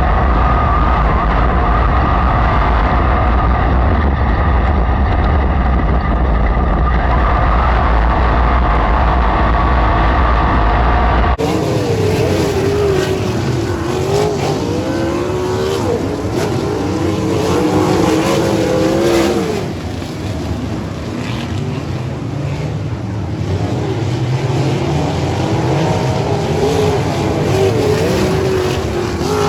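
Racesaver sprint car V8 engines running on a dirt oval during a race. The first part is a steady engine drone with a heavy low rumble. About eleven seconds in, it cuts to engines whose pitch rises and falls repeatedly as the cars get on and off the throttle through the turns.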